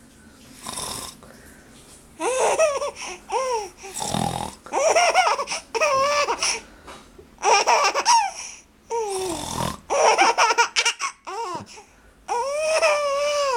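A small girl laughing hard in about five high-pitched bouts, each set off by short, low, rasping snoring sounds made by an adult.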